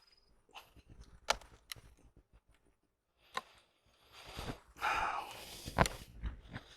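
Scattered knocks and clicks, then about two seconds of scraping and crackling with sharp cracks starting around four seconds in: a hive tool prying frames loose in a honey super, propolis-glued wood and wax comb cracking apart.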